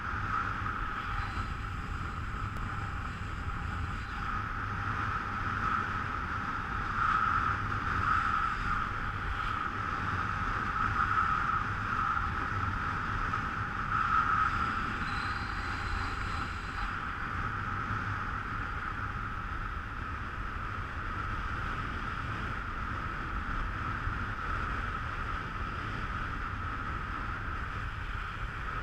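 Steady rushing hiss of skis gliding over wind-crusted snow while being pulled by a snow kite, with wind rumbling on the microphone; the hiss swells and eases a few times.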